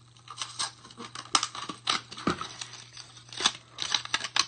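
Packaging being handled and torn open: a string of short, irregular rustles, rips and crinkles.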